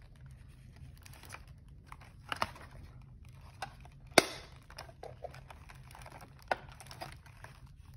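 Toy packaging being handled: light crinkling and scattered small clicks of cardboard and plastic as a doll is worked loose from its cardboard insert, with one sharp snap about four seconds in.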